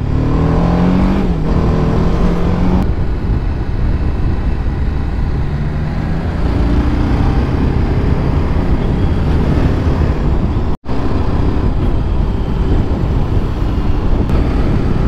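Sport motorcycle engine running under way, heard from on the bike over steady road rush, its note rising and falling through the bends. The sound cuts out briefly about eleven seconds in.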